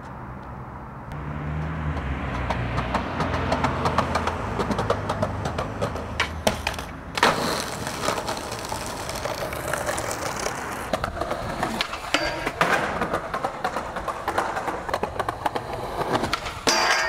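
Skateboard wheels rolling on rough asphalt with a low, steady rumble, broken several times by sharp clacks of the board's tail popping and the board landing.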